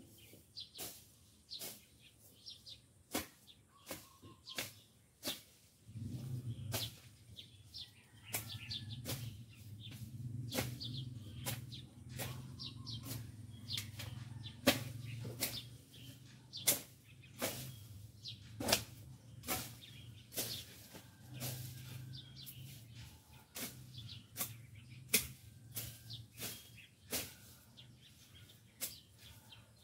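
Repeated swishing strikes of a hand blade slashing through overgrown grass and weeds, about one to two a second at an uneven pace. From about six seconds in, a low steady hum runs beneath them.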